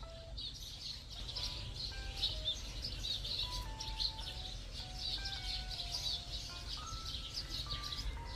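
Many small birds chirping rapidly and without pause, a busy chorus, with a simple tune of held notes playing underneath.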